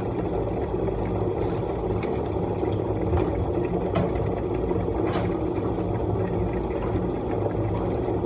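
A steady mechanical hum, like a motor-driven appliance running, with a few faint clicks and crinkles over it.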